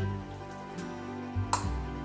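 Background music with a steady bass line, and a single light tap about one and a half seconds in.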